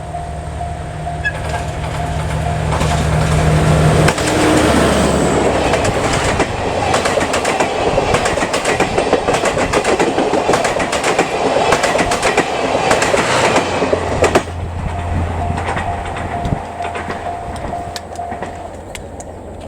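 A JNR DE10 diesel locomotive's engine hums louder as it nears and drops in pitch as it passes about four seconds in. Its seven 12-series coaches follow, rolling by with clickety-clack of wheels over rail joints for about ten seconds, and the noise cuts off sharply as the last coach clears. A steady level-crossing alarm tone rings before the locomotive passes and again after the train has gone, stopping near the end.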